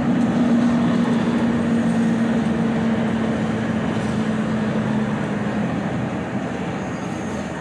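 Steady running noise of a moving vehicle, a rumble with a low hum that fades out about six seconds in as the overall level eases a little.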